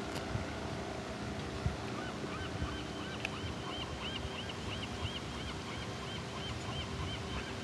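A bird calling in a rapid series of short, repeated chirps, about three a second, starting about two seconds in. Under it runs a faint steady hum and the wash of open water.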